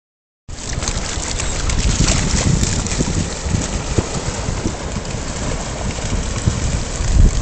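Wind buffeting the microphone with a steady low rumble, starting after a brief gap of silence, over the wash of shallow surf as dogs splash through the water.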